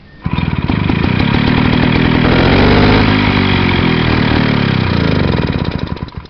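Small vintage air-cooled single-cylinder stationary engine catching on a pull of its starter cord. It runs for about six seconds, speeding up and then slowing down, and dies near the end.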